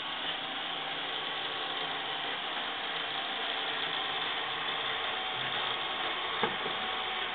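Robot vacuum cleaner running across a wooden floor: a steady whirr of its motor and brushes, with a single sharp knock about six seconds in as it bumps a chair leg.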